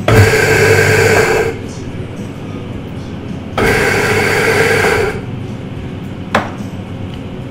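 Electric coffee grinder running twice, each time for about a second and a half, as it grinds coffee beans. A single sharp knock comes near the end.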